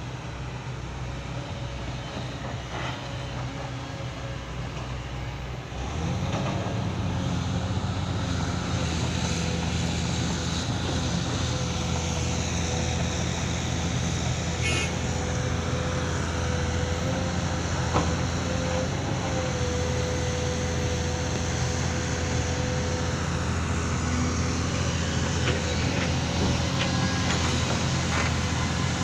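Excavator diesel engine running steadily, stepping up to higher revs about six seconds in and holding there, with a steady whine over the engine note.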